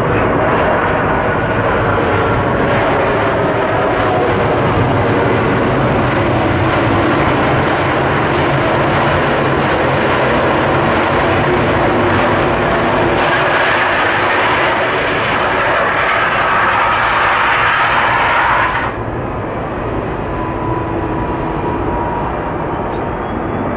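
Jet engine noise from a Boeing 757-200's Pratt & Whitney PW2037 turbofans as the airliner rolls out after landing. The rushing noise grows brighter for several seconds, then drops suddenly, about three-quarters of the way through, to a quieter idle with a steady whine as it taxis.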